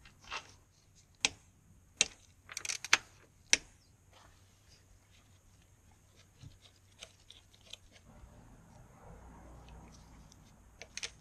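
Small metal fittings and tools clicking and tapping while a banjo bleed screw is fitted to a motorcycle brake caliper: a quick run of sharp clicks in the first few seconds, then scattered lighter ticks and a short cluster of clicks near the end.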